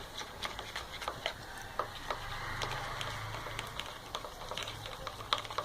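Homemade slime of glue, boric-acid water and baking soda being stirred with a spatula in a container, making irregular sticky clicks and ticks as the mixture thickens and starts to come together. A faint low hum rises under it in the middle.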